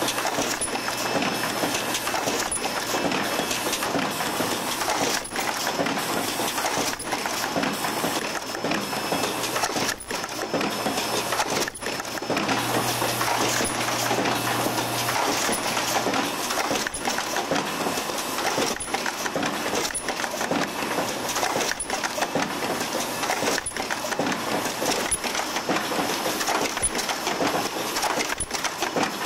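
Automated floppy-disk assembly machinery running, a steady mechanical noise with frequent irregular clicks and clacks from the pneumatic tooling and a low steady hum.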